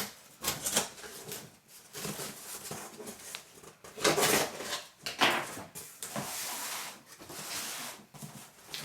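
A large cardboard shipping box being opened by hand: irregular rustling, scraping and knocks of cardboard, with a longer scraping hiss near the middle and louder handling bursts about four and five seconds in.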